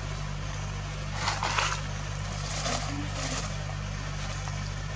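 A steady low mechanical hum, with a few short rustling noises about a second in and again around three seconds in.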